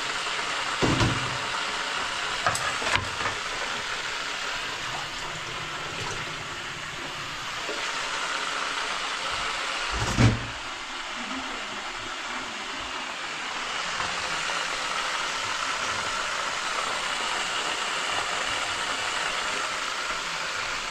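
Fish deep-frying in a pot of hot oil, a steady sizzle, with a few light knocks and one louder thump about ten seconds in.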